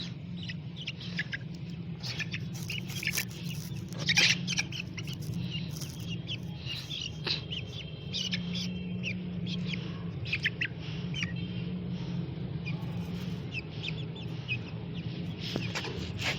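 Young chickens peeping in many short, high chirps, over a steady low hum.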